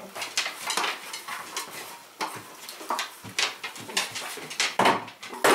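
Folding aluminium roll-top camp table being unfolded and set up: a run of light metallic clicks and clatters from the frame and slats, with louder knocks near the end.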